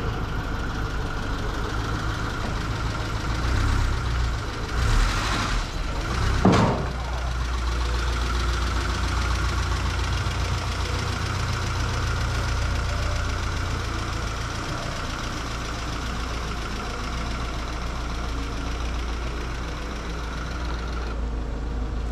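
A car engine idling steadily, with a burst of clatter about five seconds in and a single sharp knock just after.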